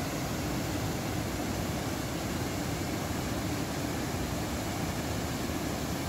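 A 10-metre-high, 15-metre-wide waterfall in heavy flow, water crashing onto rocks and into rapids: a steady, unbroken rush of water.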